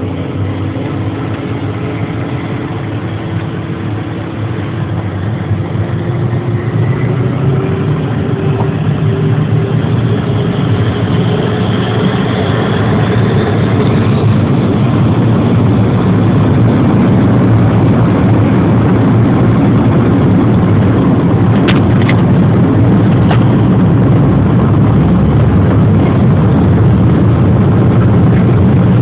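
Inside the cabin of a Cessna Citation Ultra on its takeoff roll: the twin turbofans whine higher as they spool up, and the noise builds over about the first fifteen seconds. It then holds as a steady loud rush of engine and runway noise, with two faint clicks past the middle.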